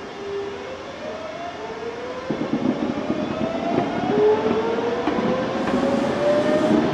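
Tobu 100 series Spacia electric train pulling away from a stop. Its traction motors and inverter give a whine that rises steadily in pitch as it accelerates, and wheel rumble builds from about two seconds in.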